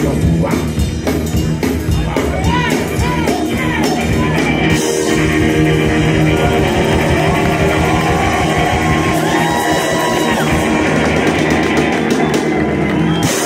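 Live rockabilly band playing at full volume: drums beating under guitar and upright bass for the first few seconds, then a long held chord with shouts and yells over it that stops abruptly right at the end, the close of the song.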